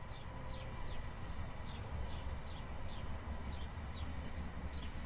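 A small bird chirping over and over, short quickly falling chirps about three a second, over a faint low rumble of ambience.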